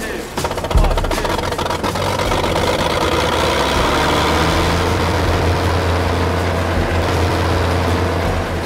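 1942 Ford SnoGo snow blower running steadily with its augers turning, with a sharp thump about a second in.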